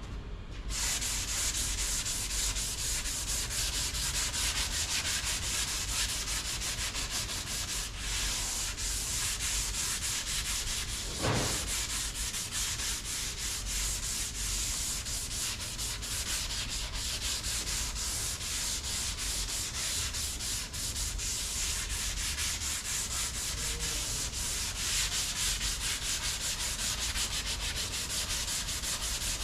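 Sanding of cured Bondo body filler on a car panel: a steady, dense scratching that starts about a second in and keeps going, with one brief thump about eleven seconds in.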